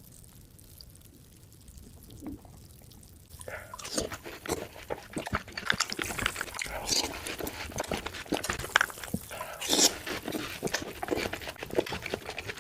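Close-miked eating of frozen fruit: crunching, biting and wet mouth clicks, starting about three and a half seconds in after a quiet stretch.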